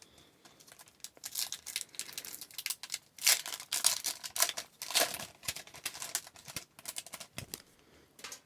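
Plastic trading-card pack wrapper being torn open and crinkled, an irregular run of crackling and rustling that is densest in the middle.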